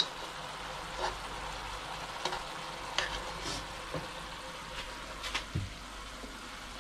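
Minced meat, sauce and holy basil sizzling steadily in a non-stick wok, stirred with a metal spoon that clicks and scrapes against the pan about once a second.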